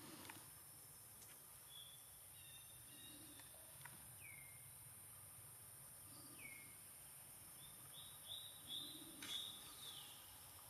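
Quiet forest ambience with faint, high chirping animal calls: two short downward-sliding chirps in the middle, then a quick run of chirps near the end.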